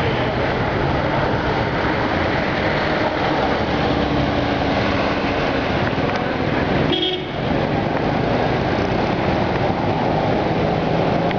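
Steady, loud street traffic: vehicle engines running and passing, with a horn tooting.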